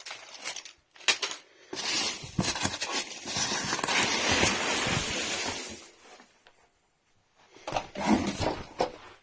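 Handling noise: a few sharp clicks and knocks, then about four seconds of continuous rustling. After a short pause there is a second, shorter burst of rustling and clatter near the end.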